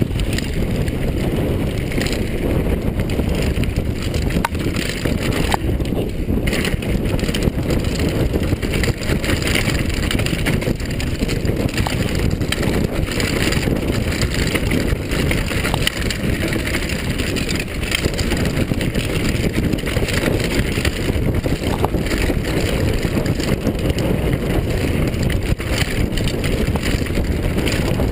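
Downhill mountain bike ridden fast down a dirt forest trail: a steady loud rumble of tyres on the ground and the bike rattling, mixed with wind buffeting the camera's microphone, with scattered faint clicks.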